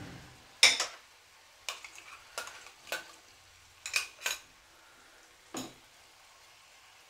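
Oil frying faintly in a steel kadai around freshly added ground masala gravy, with about nine sharp, irregular metal clinks of a steel spoon and bowl against the pan.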